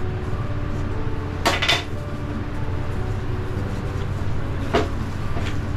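A stainless steel mixing bowl clinking against the steel worktop as minced-meat gyoza filling is kneaded by hand: two quick clinks about a second and a half in and another near the end, over a steady low hum.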